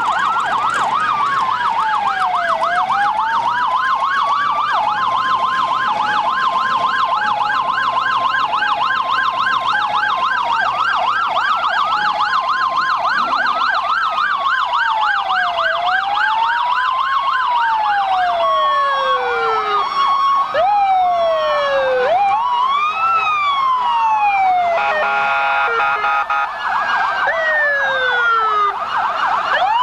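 Several emergency-vehicle sirens sounding at once, loud and overlapping. A fast yelp runs under slow rising-and-falling wails and an alternating two-tone pattern, and more sirens join in from about two-thirds of the way through.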